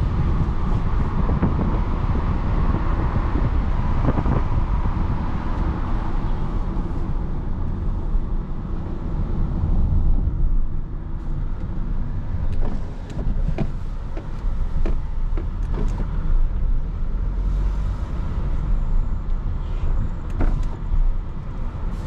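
Inside the cabin of an Audi A3 30 TFSI on the move: steady engine and road noise. The hiss of wind and tyres eases about halfway through as the car slows and turns, and scattered light clicks follow.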